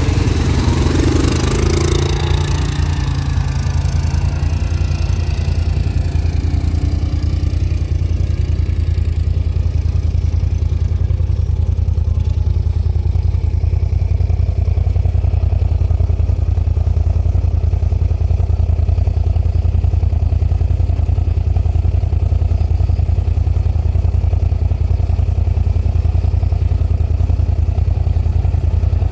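An off-road vehicle engine idling steadily close by, a strong, even low drone. During the first couple of seconds an ATV engine rises over it and then fades as the quad pulls away.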